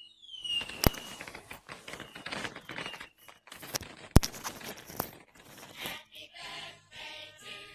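Fireworks sound effect: a falling whistle, two sharp bangs about three seconds apart, and crackling in between. Music comes in near the end.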